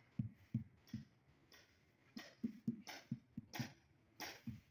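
Rubber mallet tapping a newly laid floor tile to bed it level: about a dozen dull knocks, three at the start, then after a short pause a quicker run of them.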